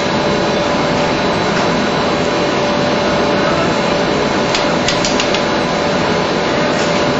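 Plastic film blowing and gravure printing line running: a loud, steady machine noise with a constant hum and a faint high whine, and a few light ticks about five seconds in.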